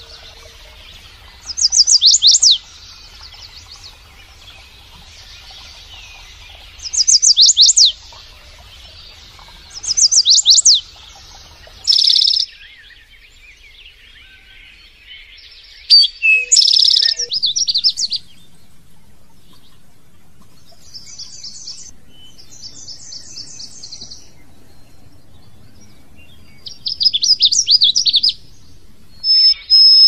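Caged songbirds singing: short phrases of rapid, high, down-slurred whistled notes repeated every few seconds, with a few clear held whistles around the middle.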